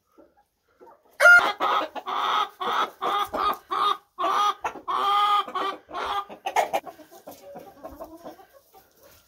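Chickens cackling: a sudden run of loud, pitched squawking calls about a second in, about two a second, easing into quieter clucking in the last few seconds.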